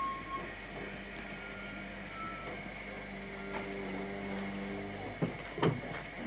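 Quiet railway-platform ambience with a low steady hum. A camcorder zoom motor whines for about two seconds in the middle. Two short knocks come near the end.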